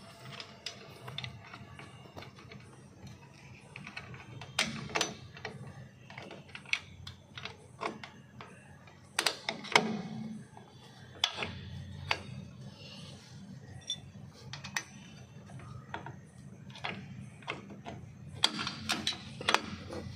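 Irregular metallic clicks and clinks of a Honda Amaze's rear drum brake parts being fitted by hand: brake shoes, return springs and adjuster strut snapping and knocking into place on the backing plate. The louder clusters of clicks come about 5, 10 and 19 seconds in.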